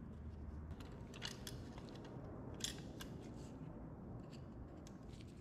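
Small metallic clicks and taps from the hydraulic cylinder's pin and hook being fitted to a pressed-steel toy dump truck chassis with a screwdriver, the sharpest click about two and a half seconds in, over a steady low hum.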